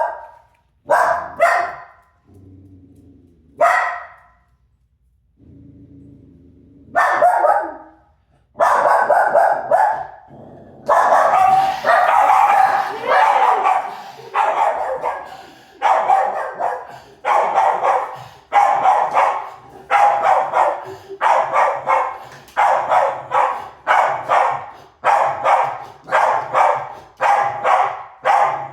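A dog barking: a few spaced barks at first, then from about eight seconds in a steady, insistent run of barks, roughly one to two a second.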